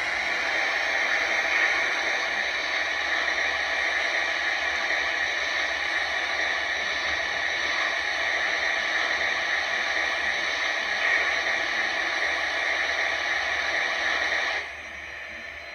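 Lionel Vision Line GS-4 model steam locomotive's onboard sound system playing a steady steam hiss while its smoke units run, cutting off suddenly near the end.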